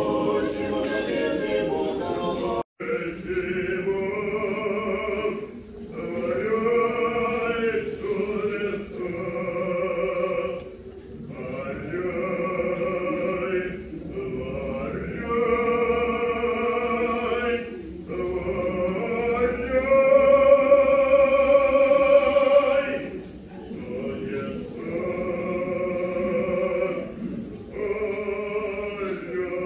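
Russian Orthodox church singing of liturgical chant, sung in phrases of two to four seconds with short breaks between. The singing cuts out for an instant about three seconds in, and the longest and loudest phrase is held about two-thirds of the way through.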